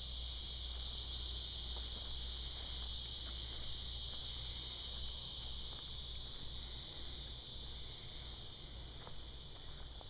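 Steady chorus of insects, a continuous high-pitched trill that does not let up, with a faint low hum beneath it.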